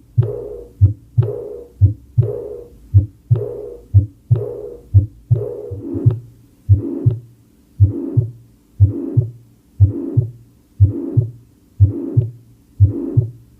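Recorded heart sounds: paired lub-dub beats (S1 and S2) repeating about once a second, each pair trailed by a short fading whoosh.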